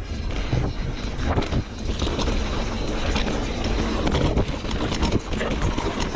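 Mountain bike being ridden on a dirt trail: continuous tyre and ground rumble with frequent small clicks and rattles from the bike, and wind buffeting the microphone.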